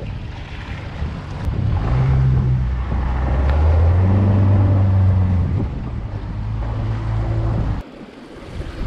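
Mercury FourStroke outboard motor running in forward gear under gentle throttle, with rushing water and wind noise, as the boat is driven up over a small dam. The engine note rises and gets louder for a couple of seconds midway, then settles and cuts off abruptly near the end.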